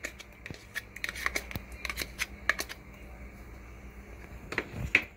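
A metal spoon scraping and clicking against a small bowl as thick yogurt is scraped out into a mixing bowl. Irregular short, sharp clicks, with a louder knock near the end.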